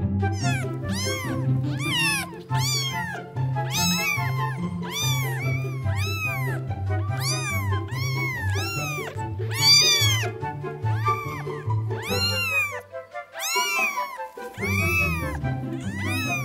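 House cats meowing over and over while fighting, about two calls a second, each call rising then falling in pitch. Background music with a steady bass line runs underneath and drops out briefly about three-quarters of the way through.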